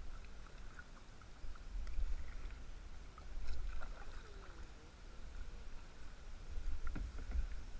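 Kayak paddling on a river: paddle blades dipping and splashing in the water at irregular moments, picked up by a GoPro, with a steady low rumble on the microphone underneath.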